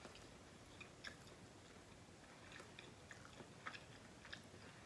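Faint chewing, with soft scattered mouth clicks, as a person eats a mouthful of food.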